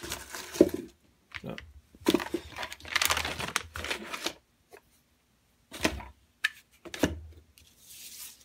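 Plastic packaging bags crinkling and shredded paper filler rustling as items are set into a cardboard box, in several bursts with short pauses between them.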